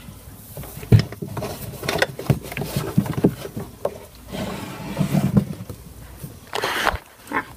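Handling noise from a phone held close to a plush toy: scattered knocks and rustling, with a louder rustle of cloth brushing the microphone near the end.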